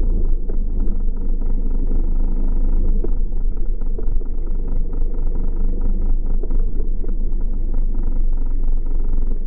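Motorcycle engine noise from an onboard camera, played back in slow motion and dragged down into a deep, steady rumble.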